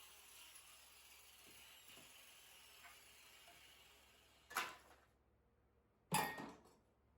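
Faint handling noise from scrap parts being taken apart, then two short, sharp knocks about a second and a half apart, the second louder with a brief ring.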